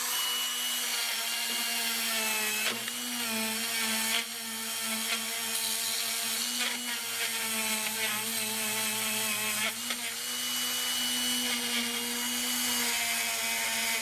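Handheld electric rotary tool running at a steady high speed, a buzzing motor whine with a hiss of its spinning attachment scrubbing a chassis ground lug, to clean off paint and corrosion so the lug makes good electrical contact.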